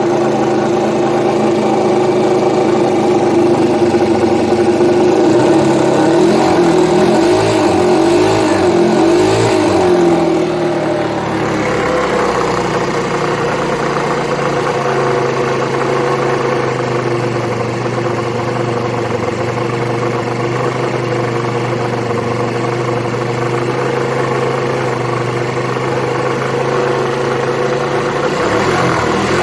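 Qingqi QM50QT-6a scooter's 50 cc four-stroke engine running, its speed wavering for the first ten seconds or so, then settling to a steady idle, and picking up again near the end. At idle the engine rattles, which the owner suspects may come from the old drive belt or the variator.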